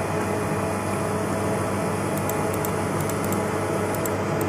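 Steady fan hum of a fiber laser marking machine running, with faint high-pitched ticks now and then.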